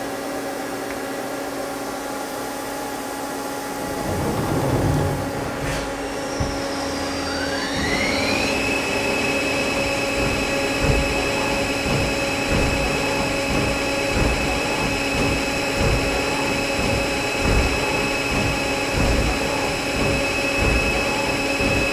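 Mazak CNC lathe starting a rerun of an OD threading cycle: a low rushing machine noise comes in about four seconds in, then the spindle spins up with a rising whine that levels off to a steady high whine at about 1,500 rpm. The steady hum of the machine runs underneath, with irregular low knocks once the spindle is at speed.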